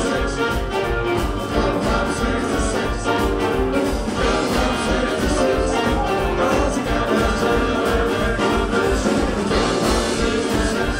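Live swing-jazz band playing with a steady beat: tenor saxophone and trumpet over upright bass, electric guitar and Hammond organ.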